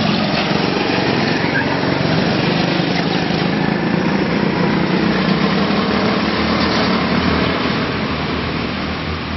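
Several go-kart engines running as karts drive past on the track, a steady small-engine buzz that eases slightly near the end.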